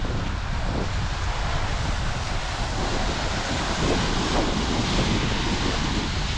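Wind buffeting the microphone with a low rumble, over a steady wash of ocean surf.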